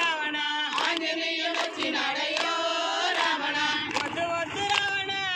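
A group of devotees singing a bhajan to Rama in unison, with hand claps keeping a steady beat a little faster than once a second.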